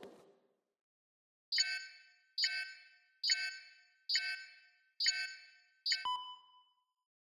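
A handheld radar device beeping: six electronic beeps about one a second, then a click and a single ping that rings out briefly, the alarm that the creature is close by. A sharp knock comes just before the beeps.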